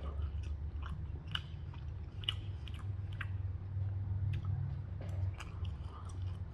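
A person chewing food, with irregular wet mouth clicks and smacks, over a low steady hum.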